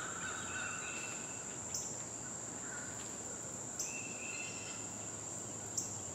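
Woodland insects making a steady high-pitched buzz, with short repeated bird calls and three brief sharp chirps about two seconds apart.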